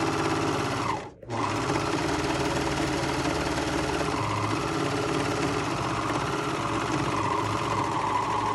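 Air-threading serger running fast through a 4-thread overlock seam, stopping for a moment about a second in, then running steadily again.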